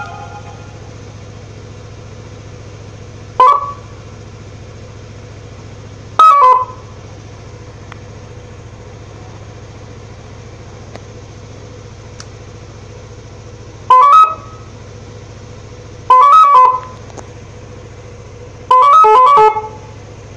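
Telolet horn on a Yamaha Nmax scooter sounding five short multi-note blasts, the last ones longer, over a steady low hum.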